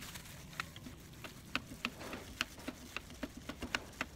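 A series of short, sharp clicks or taps, irregularly spaced at about three or four a second, over a faint low hum.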